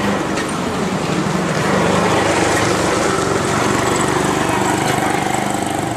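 Auto-rickshaw's small engine running steadily with an even hum.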